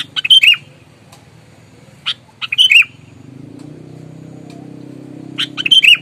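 Sooty-headed bulbul (kutilang) singing: three short, loud phrases about two and a half to three seconds apart, each a quick run of sharp notes ending in falling notes.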